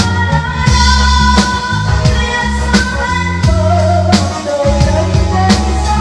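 Live band playing a slow song, with the drum kit heard up close keeping a steady beat, a strike about every 0.7 s, over bass and a sung melody with long held notes.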